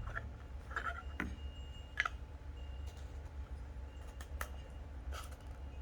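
A few faint, scattered clicks and taps over a low steady rumble.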